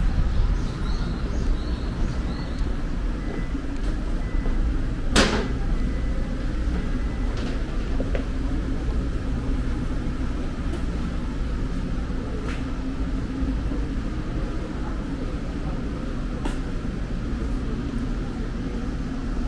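City street ambience: a steady low rumble of passing traffic, with one sharp click or knock about five seconds in and a few fainter ticks after it.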